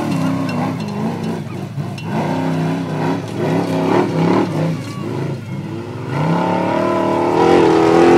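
Formula Offroad buggy's engine revving hard under full load as it climbs a steep sand hill. The pitch rises and falls again and again with the throttle and wheelspin, then climbs and holds louder over the last couple of seconds.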